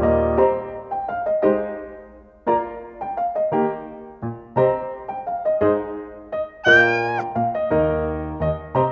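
Piano background music, with a cat meowing once, briefly and higher than the music, about seven seconds in.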